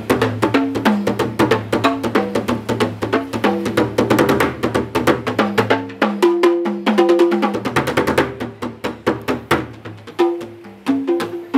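Japanese percussion played fast with drumsticks: continuous runs of strokes that step between drums of different pitch, over a low ringing tone. The strokes thin out near the end.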